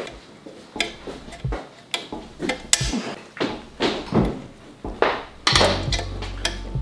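Needle-nose pliers and a steel exhaust spring clicking and scraping against the spring hooks of a motorcycle exhaust header as the spring is stretched onto them: a string of short, sharp metallic clicks with pauses between.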